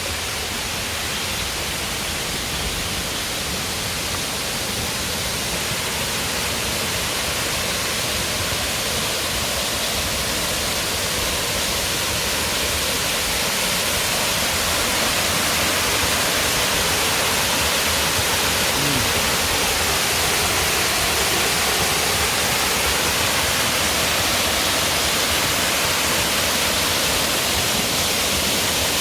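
Waterfall: a steady rush of falling water, a little louder from about halfway through.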